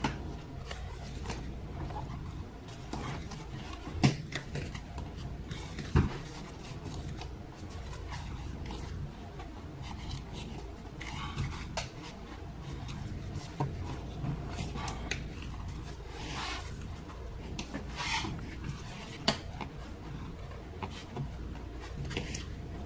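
Hard plastic air intake duct being worked back into place on a Volkswagen 1.4L turbo engine: plastic rubbing and scraping, with a few sharp knocks, the loudest about 4 and 6 seconds in and another near 19 seconds.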